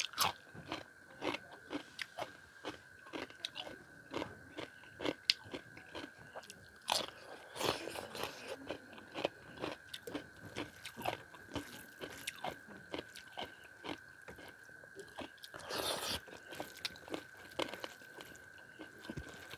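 Close-miked eating: a person chewing with many sharp wet mouth clicks, about two or three a second, and crisp crunches, with a bite of raw cucumber at the start. A faint steady high-pitched hum runs underneath.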